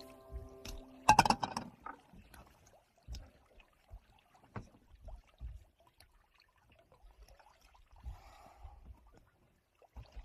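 Water splashing from a bowl onto a wooden boat deck about a second in, followed by scattered light knocks and thumps on the wooden boat.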